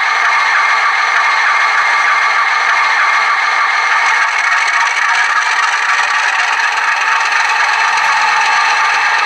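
Atlas model of a GE U36C diesel locomotive running, giving off a steady mechanical running noise that sits in the upper-middle range with no bass.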